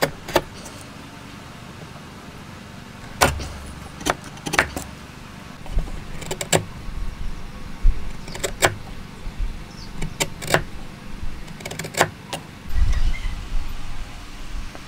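Hand chisel cutting into hardwood: about a dozen sharp cracks and clicks as the edge chops into the end grain and waste chips break free. Low dull knocks of the board and tool on the wooden workbench come a few seconds in and again near the end.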